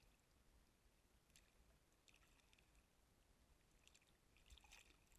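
Near silence, with a few faint, brief clicks scattered through it.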